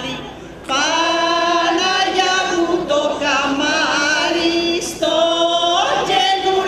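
A group of women and men singing a traditional Kalymnian wedding song together, in long held notes. The group breaks off briefly and comes back in under a second in, with another short breath about five seconds in.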